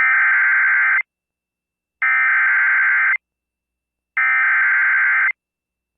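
Emergency Alert System SAME header: three identical bursts of buzzing digital data tones, each about a second long and about a second apart. It is the machine-coded opening of a National Weather Service severe thunderstorm warning.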